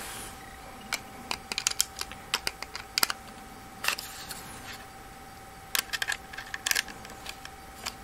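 Irregular small clicks and taps in short bunches from a Torx screwdriver tip on grommet mounting screws and from hands handling a 2.5-inch SSD, as the screws are checked for tightness.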